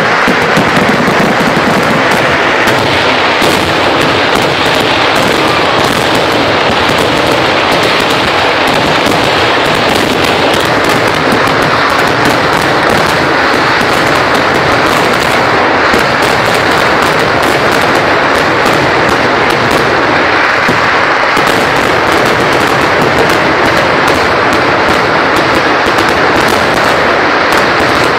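Kerala temple fireworks (vedikkettu) going off in a dense, unbroken barrage: rapid loud bangs so close together that they merge into one continuous crackle, steady in level.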